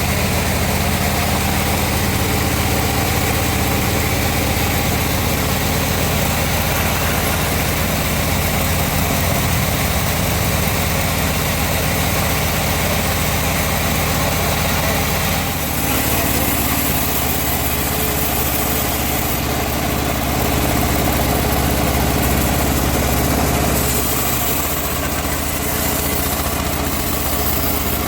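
Engine-driven sawmill running steadily while sawing teak, a continuous machine hum. Its tone shifts about halfway through and again a few seconds before the end.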